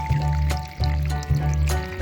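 Background music with a bass note repeating about twice a second under a steady melody.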